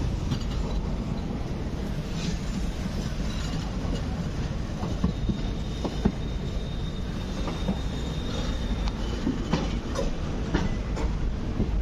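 Express train running over the track, heard aboard: a steady rumble with irregular clicks from the wheels over rail joints and points. A faint, thin wheel squeal holds for several seconds in the middle.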